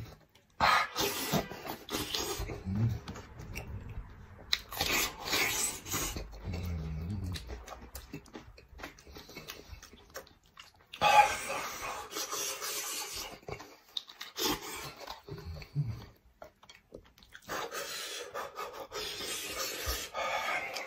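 Close-miked eating sounds: wet chewing and meat being pulled apart by hand from a braised head in sauce. The sounds come in uneven bouts with short pauses between them.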